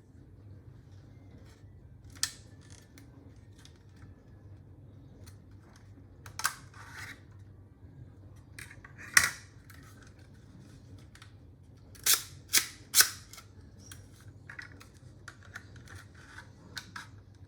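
Plastic clicks and clacks of a 3D-printed TT-33 pistol replica as its moving parts are worked, a scattered series of sharp snaps with the loudest three in quick succession a little past the middle.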